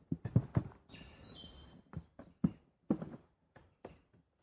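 Irregular soft knocks and rustles close by, with a small bird chirping a few short falling notes about a second in.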